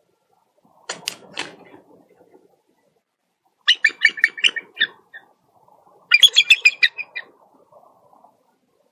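Bald eagle calling in two bursts of rapid, high, piping chatter, about eight quick notes each, with rustling in the nest beneath. A couple of sharp thumps about a second in come before the calls.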